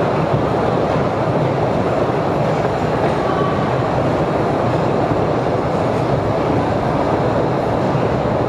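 Postojna Cave's tourist train running steadily along its track, a continuous, even noise of the moving train heard from aboard.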